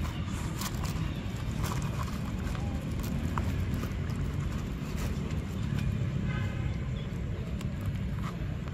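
Dry leaf litter crackling and rustling in scattered small taps as monkeys shift about on the ground, over a steady low rumble.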